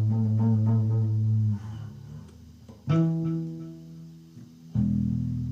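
Electric guitar through an amplifier, low notes sustained by feedback. A long, droning low note cuts off about one and a half seconds in. A new note is plucked about three seconds in and fades. Another low note starts near the end and holds steady.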